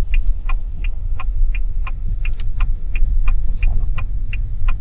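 Car's turn-signal indicator ticking evenly, about three clicks a second, over the low rumble of the car's engine and tyres.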